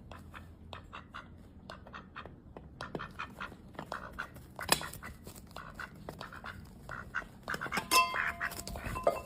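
Duck quacking in a quick series of short calls, with a sharp click about halfway through and a louder stretch near the end.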